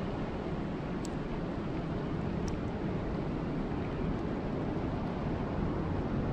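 Steady rain falling, a dense even rushing hiss weighted toward the low end, with a couple of faint sharp drip ticks about a second in and again a second and a half later.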